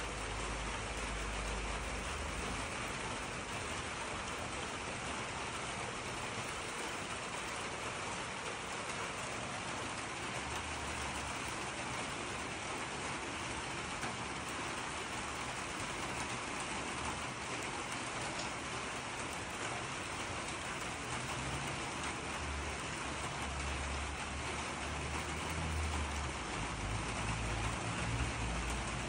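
Steady, even outdoor hiss with a few low rumbles, about a second in, around ten seconds in and again near the end.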